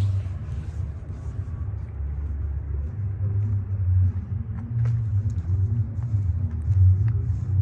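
Music from a sound system at full volume heard through soundproofed studio walls: muffled and bass-heavy, with low notes that change every second or two and almost no treble.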